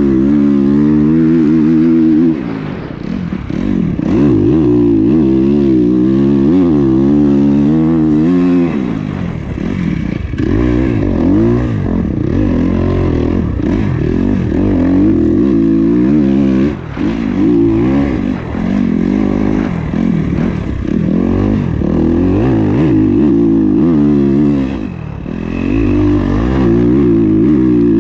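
2021 Kawasaki KX250 dirt bike's single-cylinder four-stroke engine revving hard on the move, the pitch climbing and falling again and again through the gears, with brief backing off of the throttle a few times.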